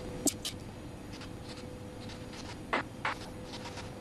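A few light clicks and taps from small plastic and metal ice cream machine parts being handled by hand, over a faint steady hum.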